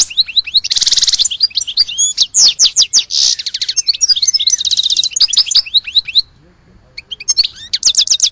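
A songbird singing a fast, varied song of rapid trills, buzzy rattles and high sweeping chirps. The song pauses for about a second and a half around six seconds in, then resumes with a quick trill.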